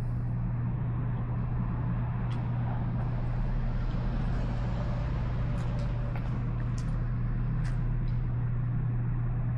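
An engine running steadily, a constant low hum with no change in speed, with a few faint short ticks about halfway through.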